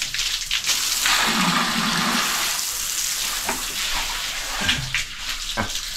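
Water from a garden hose splashing over a king cobra and a concrete floor in a steady rush, easing off near the end as the rinse finishes.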